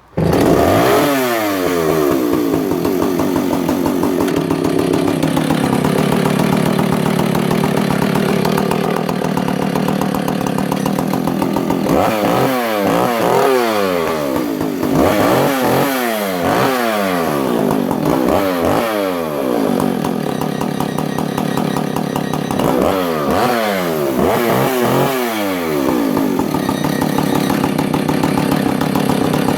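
Husqvarna 285CD two-stroke chainsaw, just started with the choke off. Its revs fall to a steady idle for about ten seconds, then it is revved up and let fall back to idle over and over.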